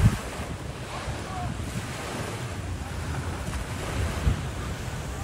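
Wind buffeting the microphone in uneven low rumbling gusts, over a steady rushing wash of open water. One stronger gust hits about four seconds in.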